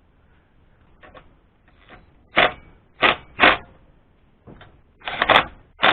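Sharp knocks and clacks of metal parts and tools being handled on a small engine during reassembly: three about half a second apart near the middle, then a quick cluster near the end.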